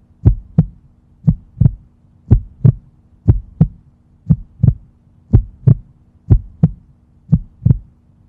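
Heartbeat sound effect: a steady lub-dub double thump about once a second, over a faint low hum.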